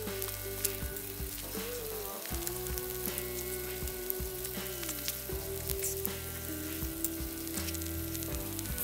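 Steak sizzling in a skillet over campfire coals: a steady frying sizzle with many small crackles. Background music with held tones plays underneath.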